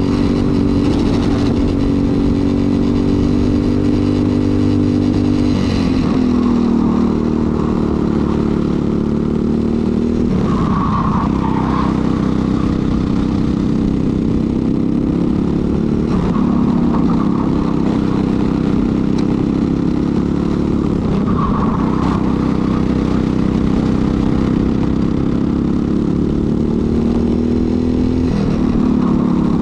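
Briggs & Stratton LO206 single-cylinder four-stroke kart engine at racing speed. Its pitch climbs steadily, then falls off sharply about every five seconds as the kart accelerates down each straight and lifts off for the next corner.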